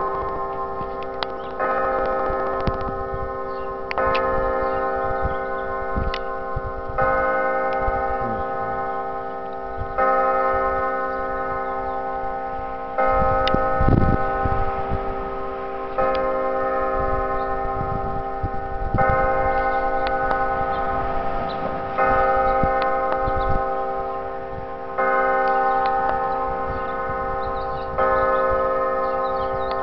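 Church bells ringing, a fresh stroke about every three seconds, with several pitches sounding on together between strokes.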